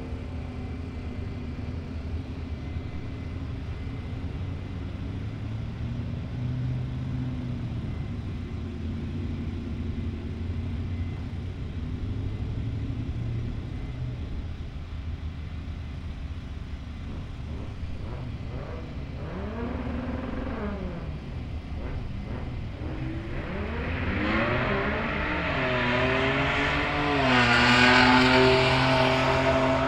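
Pickup trucks drag racing, one a 2023 Ford F-150 Lightning: a steady low hum while they sit at the line, then a pitch that climbs, dips and climbs again as they accelerate down the strip, getting louder and loudest about 28 seconds in as a truck passes close by.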